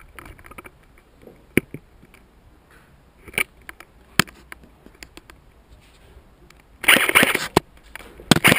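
Footsteps crunching and scuffing over debris on a concrete floor: a few separate sharp cracks at first, then a dense, loud stretch of crunching a little over six and a half seconds in.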